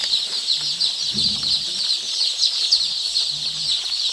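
A large flock of day-old layer chicks peeping all at once: a dense, continuous chorus of short, high chirps.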